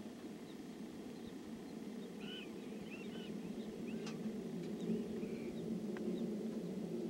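Black-tailed prairie dogs chirping faintly, a string of short calls from about two to five and a half seconds in, over a steady low background rumble.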